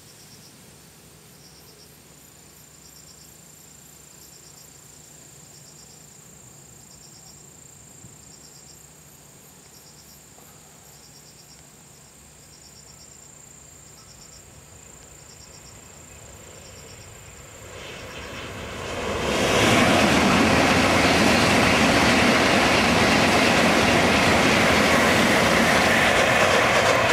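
Insects chirping in short pulses about once a second, then a Shinkansen bullet train comes up from about 18 seconds in and passes close at speed, a loud steady rush that holds to the end.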